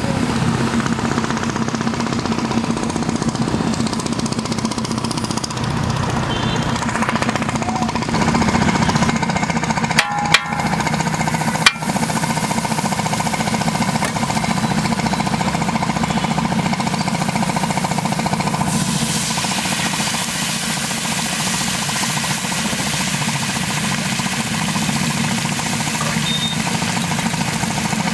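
A steady, rapid mechanical rattle, like a motor or engine running close by, with two sharp clicks near the middle. From about two-thirds of the way in, a hiss joins it: food sizzling and bubbling on a large iron tawa.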